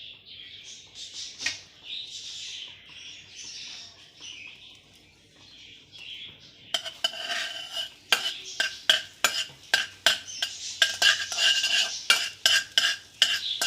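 A utensil stirring butter as it melts in a pan, scraping and clinking against the pan many times from about halfway through, with ringing metallic clinks. Before the stirring starts there is only a soft hiss.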